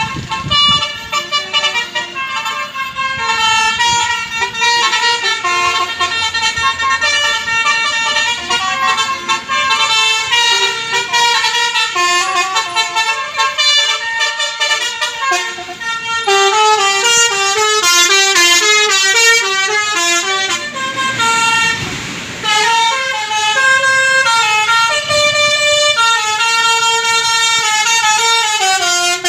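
Basuri multi-tone 'telolet' bus horn playing a long melody of stepping notes, several horn tones sounding together. A brief rushing noise comes about two-thirds of the way through.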